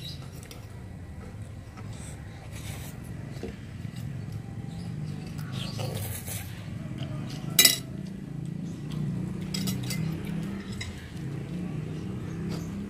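A metal spoon scraping and clinking against an amber glass plate while eating, with scattered small clicks and one sharp, loud clink about two-thirds of the way through, over a low steady hum.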